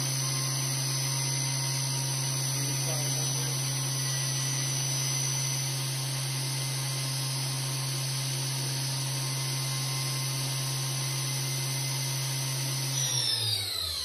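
Spindle of a Cincinnati V-CNC500 vertical machining center running with no load at a steady speed, giving a steady whine. Near the end it winds down, its pitch falling until it stops.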